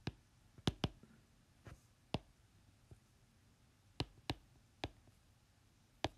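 Faint, irregular clicks of a stylus tapping on a tablet screen during handwriting, about nine in all, some in quick pairs.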